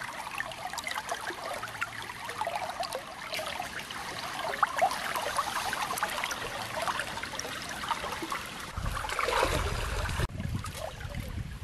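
Shallow stream water trickling and splashing, with many small splashes as a person moves through it. About nine seconds in a low rumble joins, with louder splashing, for about a second and a half.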